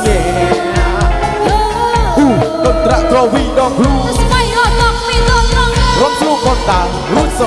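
Live Khmer orkes dance band playing, with a drum kit keeping a steady beat under bass and a melody line full of bending, sliding notes.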